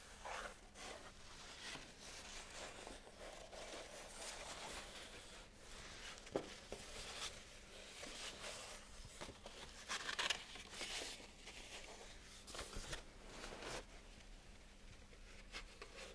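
Stiff paper sheet being handled and unfolded by hand, rustling and crinkling in irregular soft swishes, with the loudest crackles about ten seconds in.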